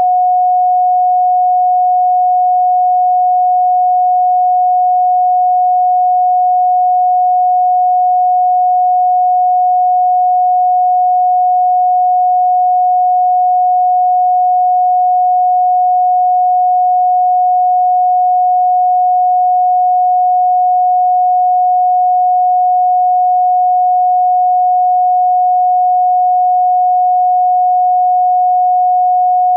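A single steady pure sine tone at about 728 Hz, held unchanged at a constant level.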